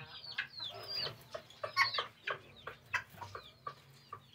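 Birds calling in an aviary: a busy run of short, falling chirps, several a second, mixed with a few louder clucking calls.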